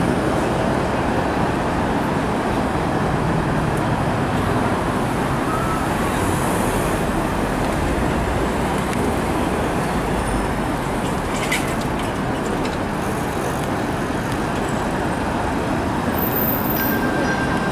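Steady street traffic noise as TTC Flexity Outlook streetcars approach along their tracks. A single sharp click comes a little past halfway.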